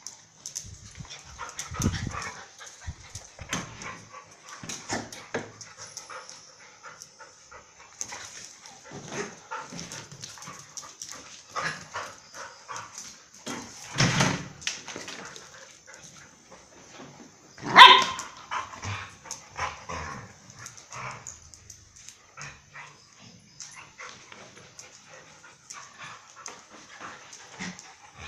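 Two dogs playing rough, barking in short irregular bursts, with one loud bark about two-thirds of the way through.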